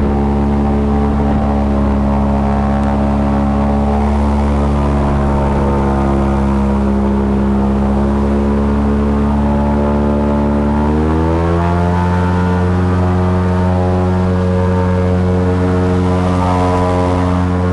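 Airboat's engine and propeller running continuously, the engine note shifting in pitch about eleven seconds in as the throttle changes.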